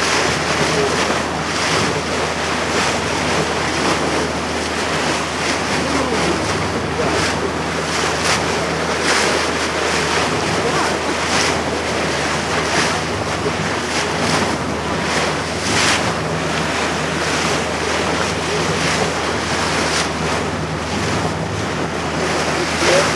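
Small motor boat under way: a steady engine hum beneath the rush and splash of water along the hull, with wind buffeting the microphone.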